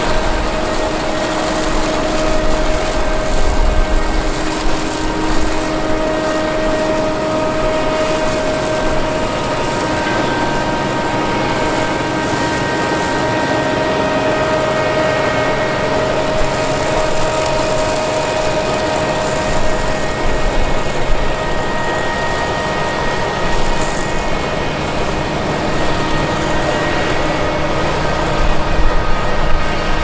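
Dewulf Kwarto self-propelled chicory root harvester running while lifting roots: a steady machine drone from the engine and working parts, with a steady whine of several pitches over it.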